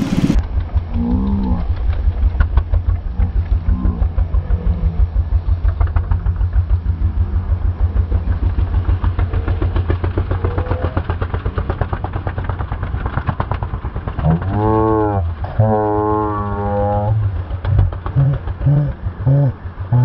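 Honda GX340 single-cylinder engine on a mini bike running with a fast, even firing beat. About fourteen seconds in it revs up and holds a higher note for a couple of seconds, then gives a few short throttle blips near the end.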